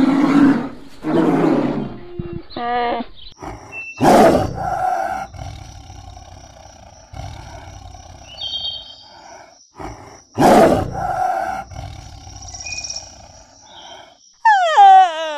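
A run of wild-animal growls and roars, typical of big cats, with two loud bursts about four and ten seconds in. Near the end comes a long call that falls and then rises in pitch.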